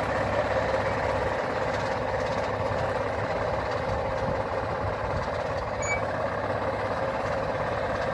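Tractor engine running steadily under load as it pulls an inter-row weeder through carrot rows. A brief high chirp sounds about six seconds in.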